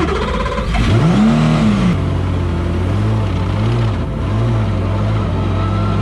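Racing car engine idling with repeated throttle blips, the revs rising and falling about five times, a little under a second apart.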